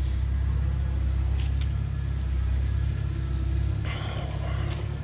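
Tractor engine running steadily at a low, even rumble.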